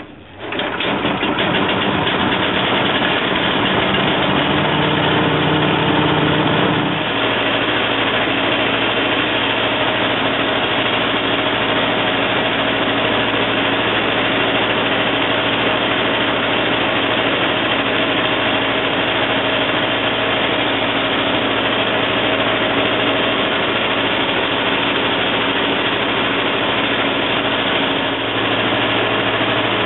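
Small gasoline engine of a hammer mill starting up and then running steadily, driving the mill as it grinds mesquite pods. About seven seconds in, its pitch drops and settles to a lower, steady speed.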